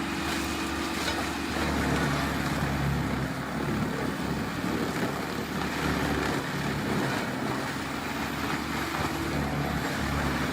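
Excavator-mounted stump crusher grinding a tree stump into mulch, a steady noisy machine sound over the excavator's low diesel hum.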